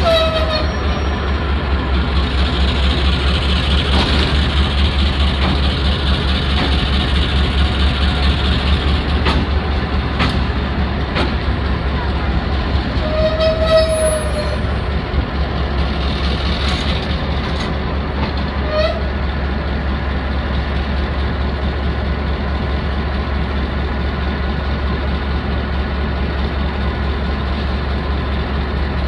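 Diesel-electric locomotive engine idling with a steady low throb as it stands on the roundhouse turntable while it is turned. A few brief higher squeaks break in, just after the start, about halfway through, and once more a few seconds later.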